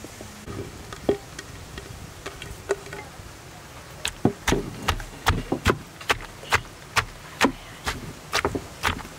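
Wooden pestle pounding fresh chillies, shallots and garlic in an earthenware mortar. A few scattered knocks, then from about four seconds in a steady run of sharp strikes, about two to three a second.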